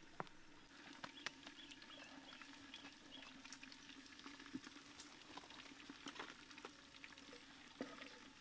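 Quiet ambience with a faint steady low hum and scattered faint clicks and light knocks: a clay cooking pot being set down on stones over a wood fire and its lid handled. The clearest knock comes about halfway through.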